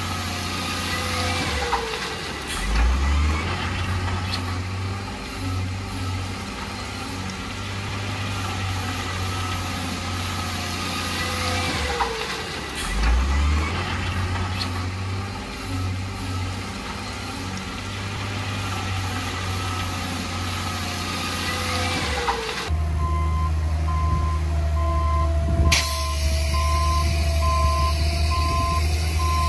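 Heavy diesel earthmoving machines, a wheel loader and dump truck, running and working, with a few brief whines that rise and fall. After a sudden change about three quarters of the way in, a steady engine with a reversing alarm beeping about once a second.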